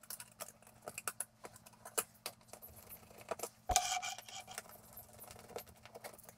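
Small metallic clicks and clinks as an old thermostat's metal base plate and its screws are worked off the wall, with one louder rattling scrape about four seconds in.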